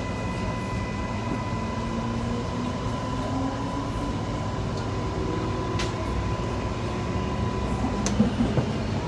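Steady hum inside a Queensland Rail electric suburban train carriage, with a thin steady high tone that cuts off about eight seconds in. A few low bumps and a couple of faint clicks come near the end.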